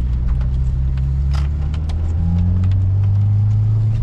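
Subaru WRX's turbocharged flat-four engine heard from inside the cabin, pulling steadily while driving, with a few sharp clicks, the loudest about a second and a half in. The engine has a cylinder misfire that the owner blames on a bad ignition coil.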